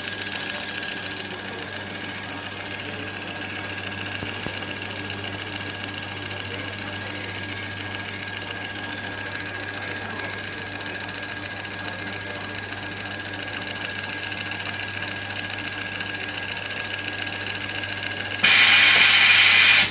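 Datamax-O'Neil I-Class Mark II thermal label printer running and feeding barcode labels through, a steady mechanical whine over a constant low hum. Near the end, a much louder burst of noise lasts about a second and a half, then cuts off as the printer halts partway through the job, a stall the title calls a buffer problem.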